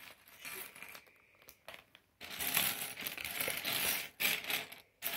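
Thin clear plastic parts bag crinkling as it is handled and emptied, in several bursts with short pauses between, loudest in the middle.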